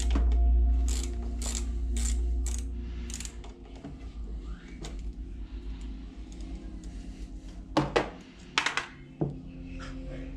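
Socket ratchet clicking in short strokes, about two clicks a second, on the nut of a motorcycle clutch-lever pivot bolt. After about three seconds the ratcheting stops, leaving scattered handling clicks and a few sharp knocks of tools and parts near the end.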